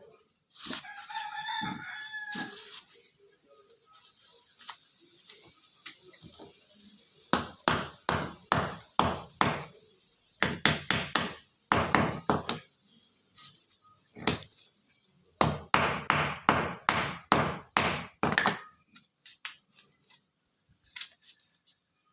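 A rooster crows once near the start. After a pause come runs of sharp knocks, about two to three a second, in four bursts lasting roughly eleven seconds in all.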